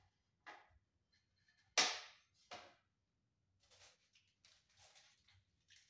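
Sharp knocks and clacks from handling a ceiling fan blade and its hardware: three separate hits in the first few seconds, the loudest about two seconds in, then faint small clicks and rustling.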